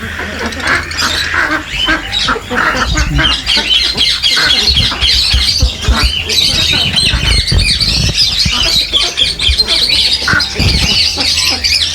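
A crowd of caged birds chattering, with many overlapping chirps and squawks.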